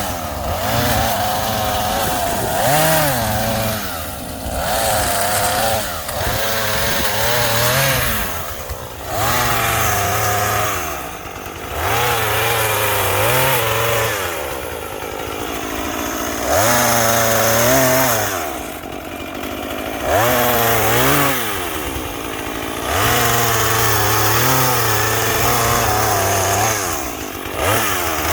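Small two-stroke saw engine revved up and down again and again as it cuts limbs, dropping back briefly to a lower idle several times between cuts.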